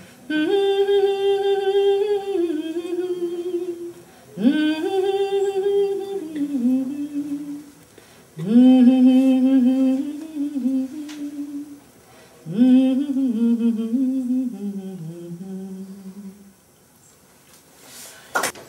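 A woman singing a slow folk melody unaccompanied, with no clear words, in four long held phrases separated by short pauses. A short sharp click comes near the end.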